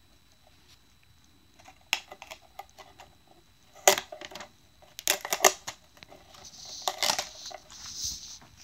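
Handling noise: a scatter of sharp clicks and knocks as the recording camera is set down and the GoPro box is moved about in front of it, loudest about four seconds in and in a quick cluster a second later, with rustling near the end.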